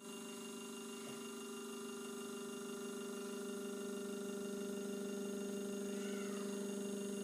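Stepper motor driven by a WAGO 750-670 stepper controller, running at constant speed through a programmed relative move, a steady whine that holds one pitch.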